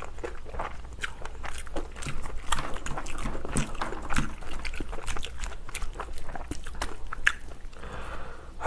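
Close-miked eating sounds of a person eating pork kimchi stew: a quick, irregular run of wet chewing and lip smacks, mixed with small clicks of the spoon and chopsticks against the pot and bowl.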